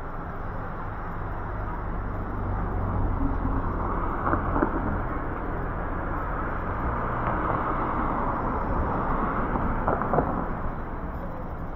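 Street traffic: cars driving past on the road, their tyre and engine noise swelling over several seconds and easing off near the end, over a steady low engine hum.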